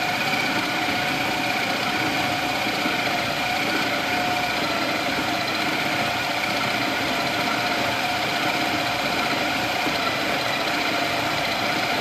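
Electric food processor motor running steadily under load as it kneads a ball of wheat-flour dough in its bowl: an even hum with a steady whine.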